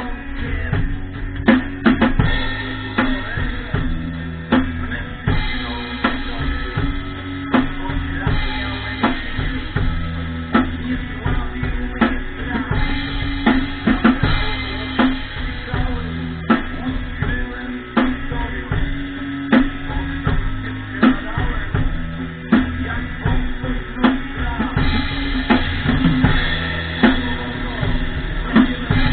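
Pearl drum kit played in a steady rock beat, bass drum and snare hits over a song with a sustained bass line.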